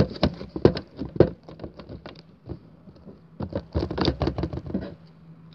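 Quick taps, clicks and rustles of hands handling craft materials while gluing paper stars onto a box, in two flurries: one at the start and another about three and a half seconds in.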